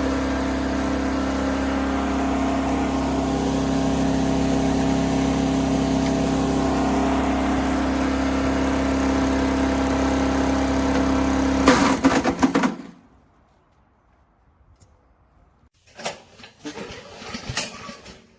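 The small 7 HP petrol engine of a SuperHandy wood chipper running steadily at speed, then cutting off about twelve seconds in with a brief loud burst. A few knocks and rattles follow near the end.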